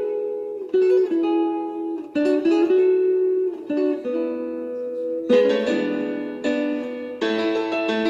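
Background music: a melody of picked notes on a plucked acoustic string instrument such as guitar.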